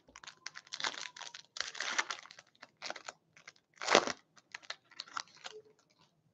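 Foil wrapper of an Upper Deck Ice hockey card pack crinkling as it is torn open and the cards are pulled out. It makes a run of short crackles and rustles, loudest about four seconds in, and stops just before the end.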